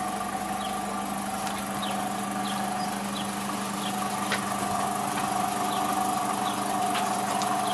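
Steady mechanical hum of a running machine, holding several even tones, with short high falling chirps about every half second and a couple of faint clicks.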